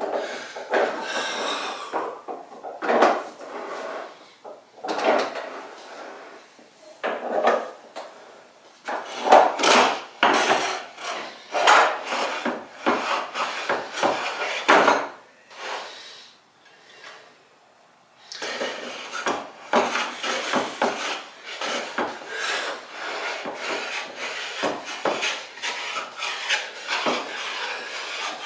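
Wood River No. 7 jointer plane taking repeated strokes along the edge of a board, its iron cutting shavings from the wood. The strokes come one at a time with short gaps at first, stop for about two seconds a little past halfway, then follow in quick succession.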